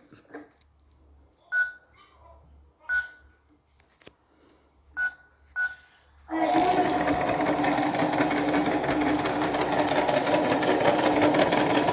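Toy washing machine's buttons beeping four times, single short tones, then about six seconds in its small motor starts up and runs with a steady whirring hum.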